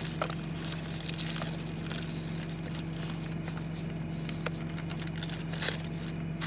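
Light rustling of a paper food wrapper and takeout bag, with a few faint small clicks, over a steady low hum inside a car cabin.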